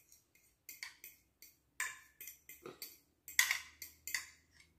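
Short scrapes and light clinks on a ceramic bowl, a dozen or so in a few seconds, as pecorino cheese cream is scraped out over a bowl of spaghetti. The loudest comes about three and a half seconds in.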